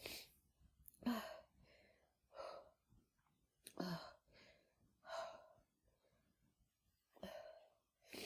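A woman with a head cold breathing hard through a chhinkni-induced sneezing fit: about seven short, breathy sighs and gasps, some with a little voice in them, spaced irregularly a second or two apart.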